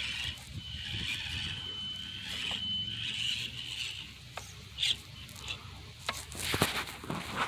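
Micro RC rock crawler's small electric motor and geared transmission whining as it drives, the whine wavering with throttle for about four seconds. This is followed by a few sharp knocks and clatters as the tyres and chassis strike rock.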